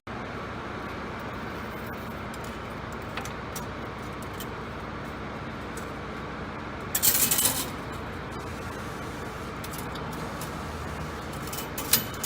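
Small metallic clicks and clinks over a steady background noise, with a loud hiss lasting about half a second roughly seven seconds in and a sharp click near the end.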